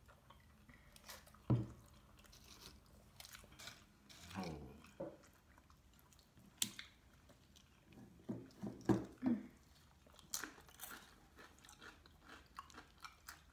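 Close-up chewing and biting sounds of people eating homemade burritos: irregular wet chewing and lip smacks with scattered sharp clicks. The loudest ones come about a second and a half in and around nine seconds in.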